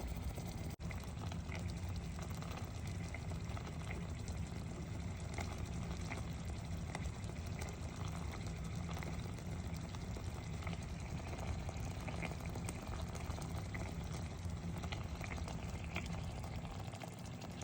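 Liquid bubbling at a boil, a steady bubbling with scattered small pops.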